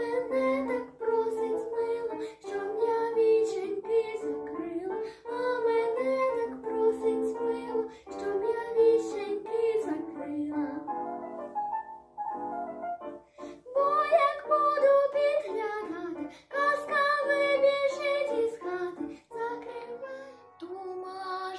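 A young girl singing a solo song in Ukrainian with instrumental accompaniment.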